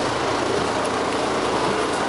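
Dennis Arrow double-decker bus running, a steady mix of engine and road noise with no change in level.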